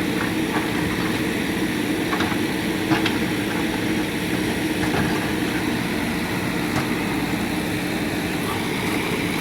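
Diesel engine of a JCB 3DX backhoe loader running steadily, with a few faint knocks.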